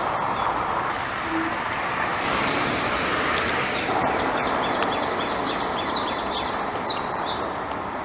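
Steady hum of city traffic, with a quick run of high bird chirps from about four seconds in until shortly before the end.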